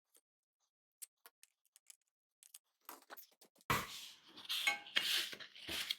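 Scraping and rubbing at the rotted, gummy foam surround remains on a subwoofer driver's cone edge: a few faint ticks, then from about four seconds in a run of loud, irregular rasping strokes.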